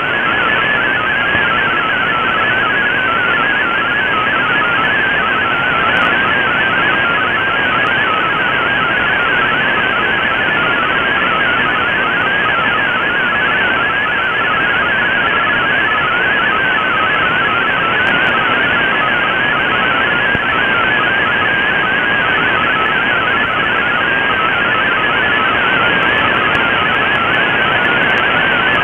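MFSK32 digital data signal received on shortwave through an Icom IC-R8600 in AM mode: a fast, warbling stream of tones hopping up and down in a narrow band at a middle pitch, over steady band hiss. It is carrying text that is being decoded as it plays.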